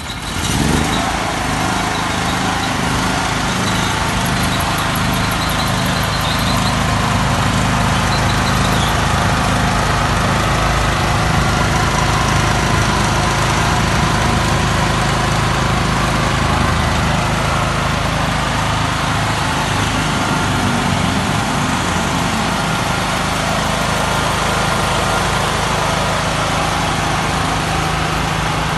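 Krisbow 5500-watt petrol generator engine coming up to speed just after the start and then running steadily.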